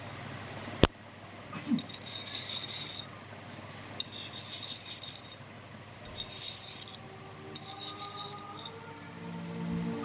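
Large copper token coin handled in the fingers: one sharp click about a second in, then four short bursts of high metallic rattling or rubbing, each about a second long.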